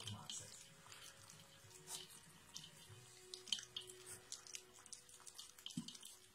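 Border collie puppies lapping and eating soaked food from a stainless steel puppy feeding bowl: faint, quick wet licks and smacks, coming irregularly.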